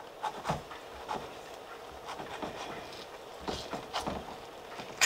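Small kitchen knife cutting around the stem of a whole tomato to core it: quiet, irregular little clicks and crunches as the blade works through the flesh, with one sharper click near the end.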